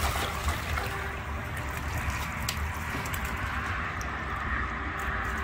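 Steady running, trickling water over a low rumble, with a few light clicks.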